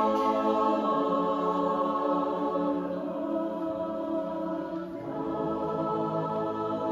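A choir singing sustained chords. The chord changes about a second in and again about five seconds in, where lower voices join.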